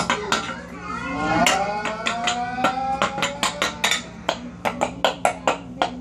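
A person making wordless vocal noises, a voice-like tone gliding up and down, mixed with a string of sharp clicks and clinks that come about three or four a second in the second half.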